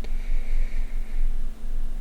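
Wiping old thermal paste off a graphics card's GPU die: a short click, then about a second of faint rubbing, over a steady low background rumble.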